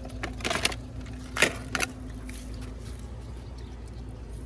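Plastic fish basket being unlatched and its lid opened: a few short plastic clatters and rattles, the loudest about a second and a half in, over a steady low rumble.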